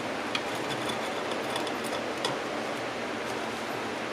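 Steady background hiss of a quiet workroom, with a few faint, light clicks.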